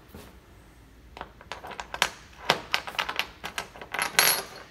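Quick-release tie-down lug being fitted into a metal deck track: a rapid run of sharp metallic clicks and clinks, starting about a second in and densest near the end.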